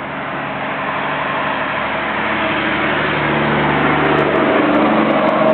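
Motor vehicle engine and road noise, a steady drone that grows gradually louder.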